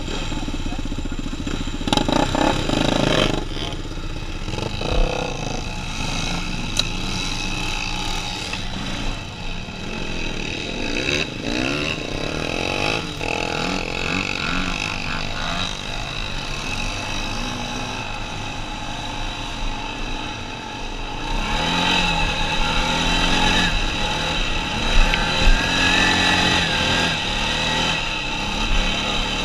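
Utility ATV engine running and revving under the rider, its pitch rising and falling with the throttle, among other quad and dirt bike engines. It gets louder and works harder for the last third as the quad climbs a steep sandy hill.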